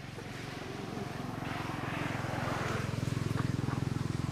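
Engine of a motor vehicle running with a low, rapid pulsing, getting louder over the first three seconds as it comes closer.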